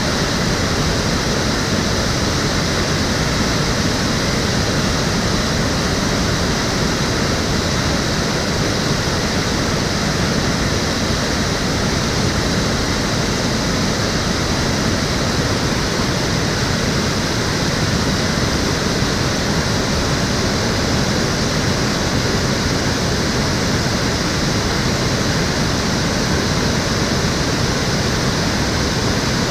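Water of the Cheonggyecheon, an urban stream, flowing and splashing in a steady, unbroken rush.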